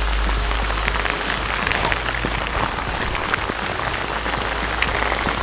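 Heavy rain falling on a river's surface and its stony bank: a steady hiss thick with small drop ticks.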